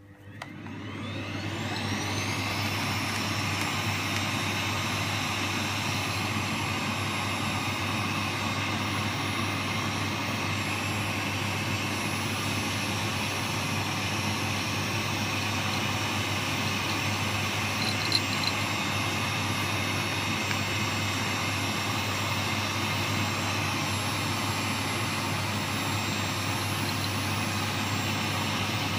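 Vacuum cleaner switched on, its motor whining up to speed over about two seconds, then running steadily.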